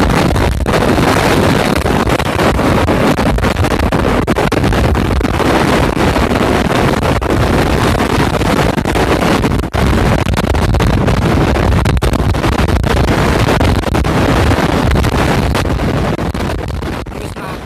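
Large swivel trolley caster wheel with a rubber tyre spinning freely on its hub bearing while held in the hand: a steady whirring noise with fine rattling, dying away near the end.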